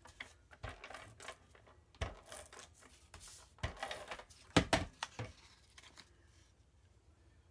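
Paper rustling and sliding as cardstock strips are handled on a cutting mat, with a few sharp taps and clicks. The loudest rustle comes a little past halfway, and the sounds die away for the last couple of seconds.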